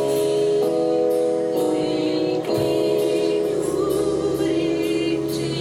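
Live praise and worship music: sustained chords that change about every second, a light steady tick about twice a second, and singing.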